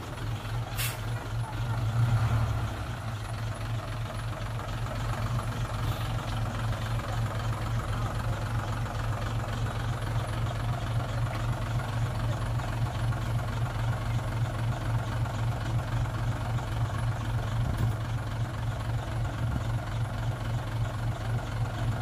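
Heavy diesel engine running steadily with an evenly pulsing low throb, swelling louder for a moment about two seconds in. A single sharp click about a second in.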